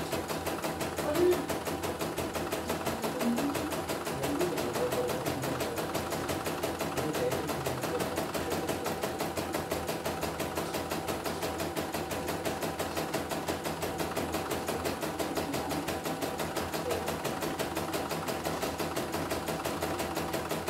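CNY portable computerised embroidery machine stitching a design, the needle running in rapid, even strokes, with one louder clack about a second in. It is running smoothly on its newly fitted rotary hook, with no thread snagging.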